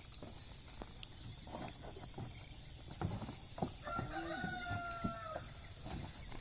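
A rooster crowing once, one long held call about four seconds in, with a few short knocks around it.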